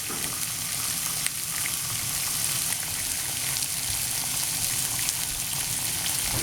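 Bacon rashers frying in a pan: a steady sizzle with scattered small crackles.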